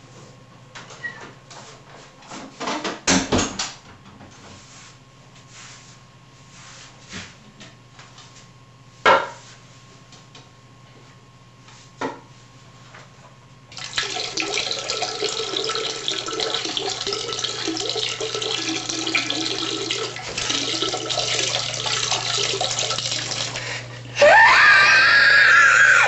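A few scattered knocks and clicks, then, from about halfway, a steady stream of liquid splashing into the water of a toilet bowl. Near the end a louder sound with a rising, wavering tone joins the stream.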